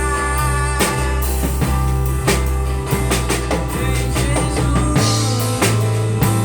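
Live band rehearsing a worship song: drum kit keeping a steady beat over a held bass line and sustained chords. The bass moves to a higher note about five seconds in.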